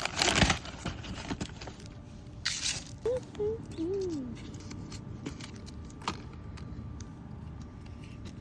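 Candy wrappers crinkling and light clicks as candy is handled and dropped into a gift bag, loudest in the first half second, with a short rustle and a brief faint hum a few seconds in.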